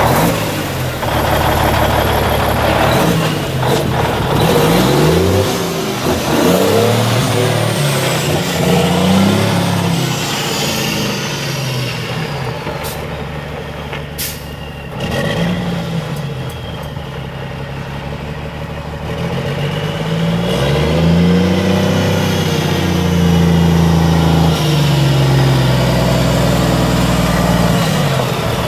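Cummins N14 inline-six turbo diesel of a 1999 Freightliner FLD120 semi truck running, its engine speed rising and falling repeatedly and held higher for several seconds near the end. A few brief sharp noises come about halfway through.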